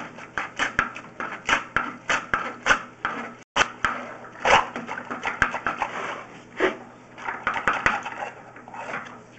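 Irregular clattering and knocking, several knocks a second, from a sewer inspection camera's push cable being fed down a drain line, with a brief cut-out about a third of the way in.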